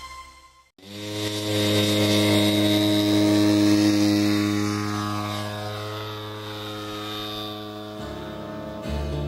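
Intro music fades out, then a model aircraft engine drones steadily overhead, its pitch holding level and its loudness peaking a few seconds in before easing off.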